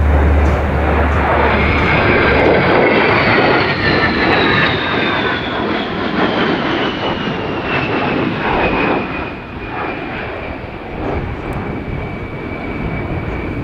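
A-10 Thunderbolt II's twin turbofan engines as the jet flies past, a steady roar topped by a high whine that falls slowly in pitch through the pass. The roar eases a little in the second half.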